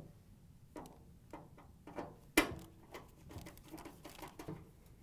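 Scattered small metallic clicks and taps as a 1/4-inch nut driver drives screws into a clothes dryer's sheet-metal front panel from behind. One sharper knock comes about two and a half seconds in, followed by a run of light ticks.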